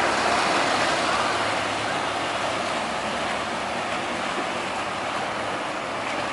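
Motorboat engine running with a steady low hum under the rushing of its wake on the canal water, easing slightly as the boat moves away.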